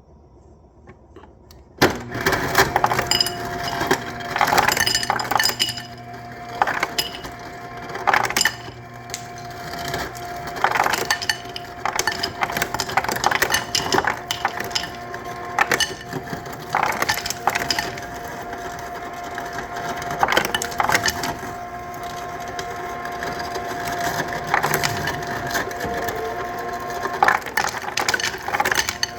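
Refrigerator ice dispenser running with a steady motor hum while ice cubes clatter and knock out of it irregularly. It starts about two seconds in.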